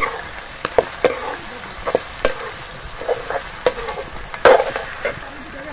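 Pork pieces sizzling as they fry in their own rendered fat in a metal karahi, while a metal spatula stirs them, scraping and clacking against the pan every half second to second, loudest about four and a half seconds in.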